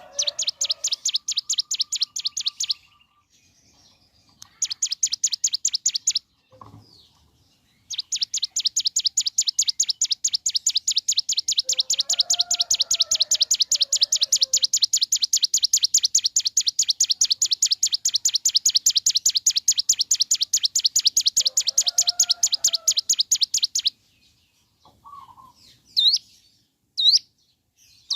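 Hill prinia (ciblek gunung) singing its rapid rattling 'ngebren' trill of fast, evenly repeated high notes. It gives two short runs, then one long unbroken run of about sixteen seconds, then a few short whistled notes near the end.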